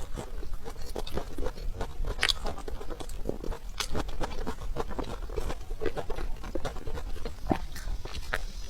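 A person chewing food: a dense, irregular run of quick crunches and small clicks.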